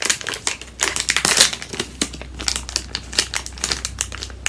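Foil blind-bag packet crinkling as it is handled and torn open: a run of irregular crackles, loudest about a second and a half in.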